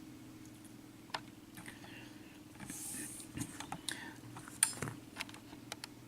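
Scattered small clicks and light metallic clinks of small lock pins and parts being handled, over a faint steady hum.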